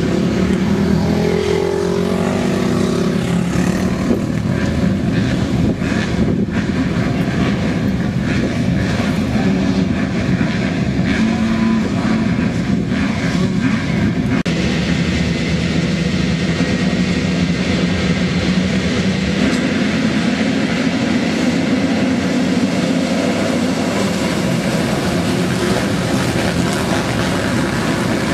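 A pack of motocross bikes at a race start, many engines revving together on the gate, then the field accelerating away and racing into the first turn.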